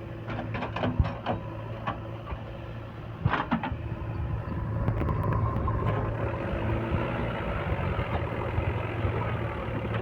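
A heavy diesel engine running steadily, with a series of sharp knocks and clanks in the first few seconds.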